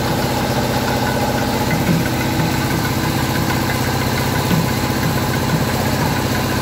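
Tractor's diesel engine idling steadily, with an even, fast knocking beat.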